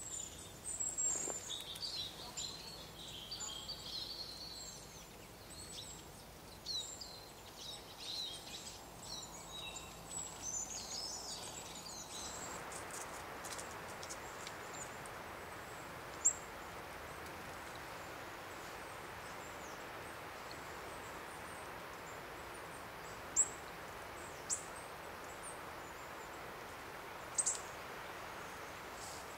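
Small woodland birds chirping and calling, many short high calls overlapping, for about the first twelve seconds. Then a steady soft hiss, broken by four single sharp high chirps a few seconds apart.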